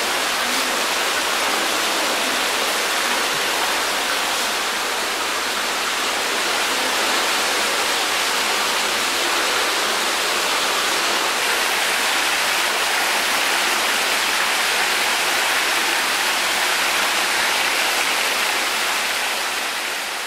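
Steady rush of running water, even and unbroken, fading out near the end.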